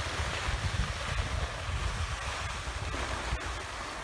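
Wind buffeting the microphone in gusty low rumbles, over a steady hiss of skis sliding across groomed snow.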